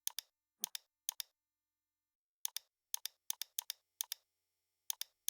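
Sharp clicks of a computer mouse and keyboard being worked at a desk, scattered and often in quick pairs, with near silence between them.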